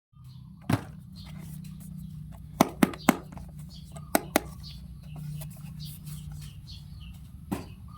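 A handful of sharp clicks and knocks, two or three close together near the start and middle, over a steady low hum.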